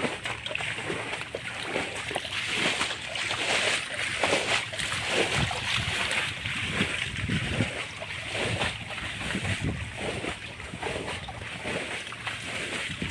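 Shallow pond water splashing and sloshing in irregular bursts as people wade and work in it.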